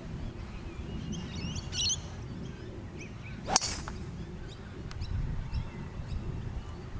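Golf club striking a ball: one sharp crack a little past halfway through, the loudest sound, over a low rumble of wind on the microphone. Birds chirp briefly early on.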